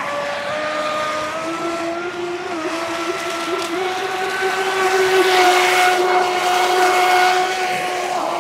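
RC speedboat's 3650-size, 3100 kV brushless motor whining as the boat runs across the water, its pitch edging up gradually. A hiss of water spray and wind swells about five seconds in.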